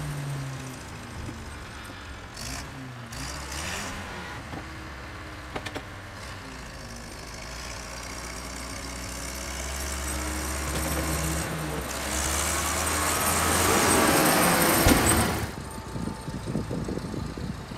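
Volvo tractor-loader's diesel engine running as it manoeuvres and pushes snow, working harder and growing louder and harsher over several seconds before cutting off abruptly near the end.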